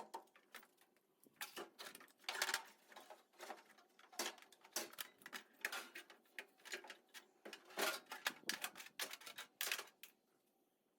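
Irregular light clicks and clanks of hand tools and metal parts being handled, stopping about ten seconds in.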